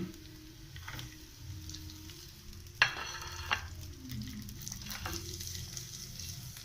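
Garlic and spaghetti frying in oil in a pan, a steady sizzle with stirring. A louder burst of sizzle and stirring comes about three seconds in.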